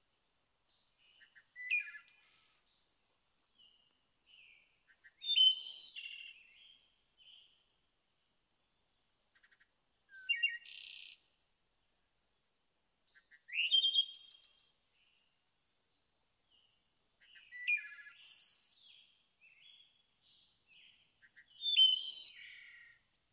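A songbird singing short, high, chirping phrases at intervals of about four seconds, six in all, with stillness in between.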